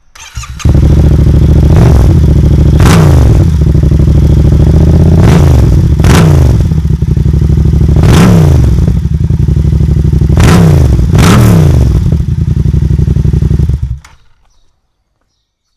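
Yamaha MT-07's parallel-twin engine through a Roads Doublefire aftermarket exhaust, coming in suddenly about half a second in and running loud. The throttle is blipped about seven times in short revs, and the engine cuts off about fourteen seconds in.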